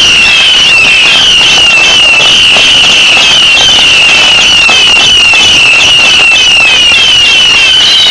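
Fireworks crackling and banging continuously, over a high chirping whistle that repeats about three times a second.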